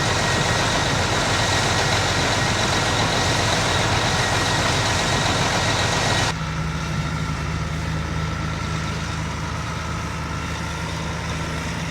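A hard water spray hissing steadily with a thin high whine as a grain bin is washed out, cutting off about six seconds in. It gives way to a truck engine idling steadily.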